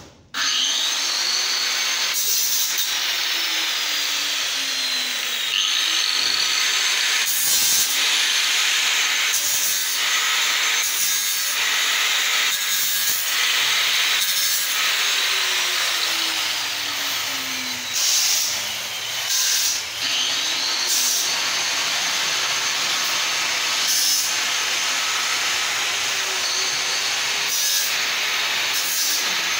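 Electric angle grinder grinding steel bar, with a continuous loud abrasive screech. Its motor whine slides down in pitch a few times as the disc is pressed into the metal, with brief letups about two-thirds of the way through.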